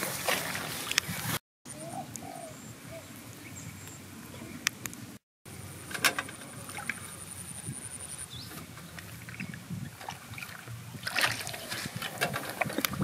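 Long-handled metal hoe pulled through waterlogged grass and mud: rustling and splashing with a few sharp knocks, busiest about eleven seconds in, broken twice by brief silences.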